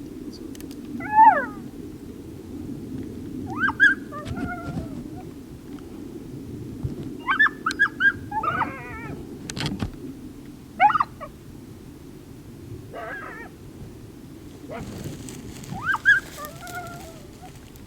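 Coyotes challenge barking as they come in: short bark-howls with rising and falling yips, about one every couple of seconds. The sound is the agitated, territorial barking of coyotes that want to fight.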